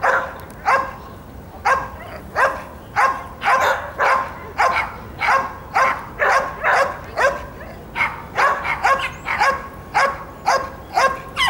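A dog barking over and over in a steady run of short, sharp barks, about two a second.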